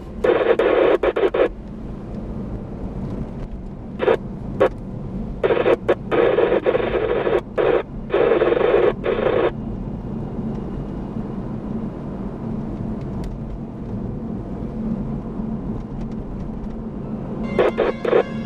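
Chopped bursts of received transmission from a scanning PMR446 UHF radio played over car speakers, cutting in and out through the first half and briefly near the end. A steady low car-cabin road rumble runs underneath.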